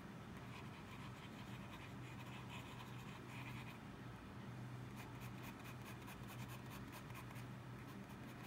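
Extra-fine steel nib of a Lamy Safari fountain pen scratching across sketchbook paper in short hatching strokes, coming in quick succession from about halfway through. A steady low hum runs underneath.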